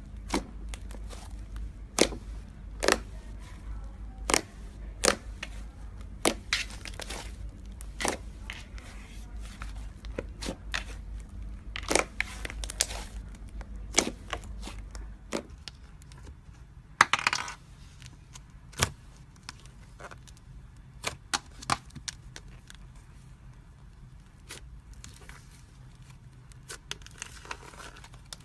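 Soft butter slime being squeezed, folded and stretched by hand. It gives off irregular sharp pops and clicks, about one a second, as trapped air bursts out.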